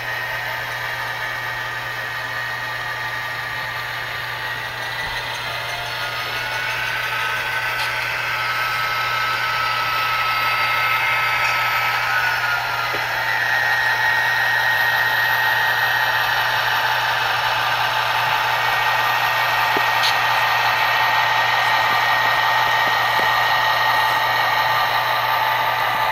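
HO scale Norfolk Southern GP60 and B40-8 model diesels with Tsunami sound decoders playing diesel engine sound through their small onboard speakers, with steady whining tones. The sound grows louder from about six seconds in as the locomotives come closer.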